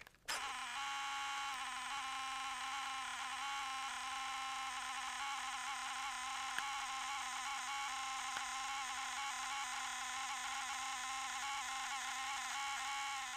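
Steady electric buzz from the crashed flying wing's onboard electronics, a low hum with higher whining tones over it that hold unchanged.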